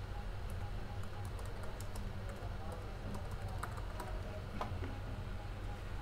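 Computer keyboard being typed on: quick, irregular key clicks over a steady low hum.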